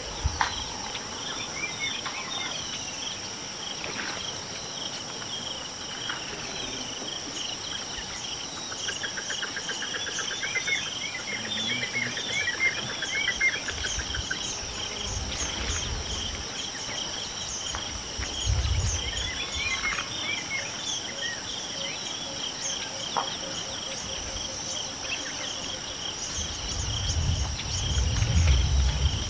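Steady insect chorus, a shrill continuous sound in two high bands, with bird calls chirping on top, most of them about ten to thirteen seconds in and again near twenty seconds. A low rumble comes in near the end.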